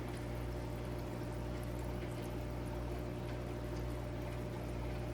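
Hygger HG-158 aquarium air pump humming steadily, with air bubbling and fizzing out of the air lines into tank water.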